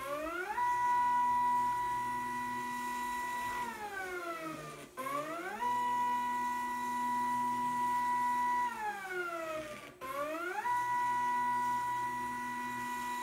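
Gear-drive stepper motors of a 3D-printed six-axis robot arm whining as the arm moves. Each move starts with a rising whine as the motors accelerate, holds one steady tone, then falls away as they decelerate. There is about one move every five seconds.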